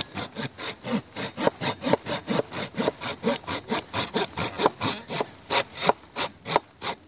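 Silky Gomboy Curve folding pull saw with a 240 mm curved blade cutting through a dead branch by hand: quick, even rasping strokes of the teeth in the wood. The saw cuts mainly on the pull stroke.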